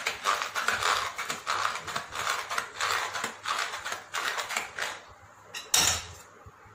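Hand-cranked stainless steel puran grinder (food mill) grinding soaked sago pearls: its blade scrapes round against the perforated plate in quick repeated strokes. The strokes stop about five seconds in, and a single sharp knock follows.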